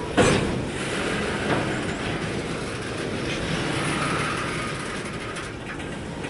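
Freight train cars rolling past with the wheels clattering on the rails. A loud bang comes just after the start and a smaller knock about a second and a half in.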